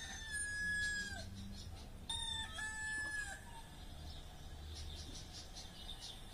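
Rooster crowing twice, each crow ending in a long held note.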